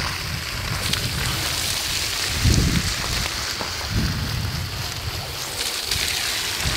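Water jetting out of the opened ends of 16 mm drip-irrigation sublines onto the soil, a steady hiss, with wind buffeting the microphone in gusts, strongest about two and a half and four seconds in.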